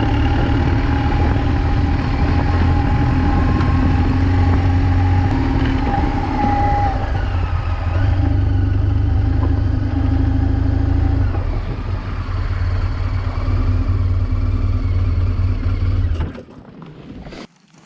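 BMW R1200GS boxer-twin engine running at a steady, unhurried pace while riding. The sound cuts off sharply about 16 seconds in.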